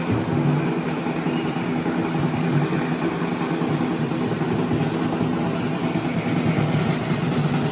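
Large drums beaten in a fast, continuous roll, giving a steady, dense rumble with no pauses.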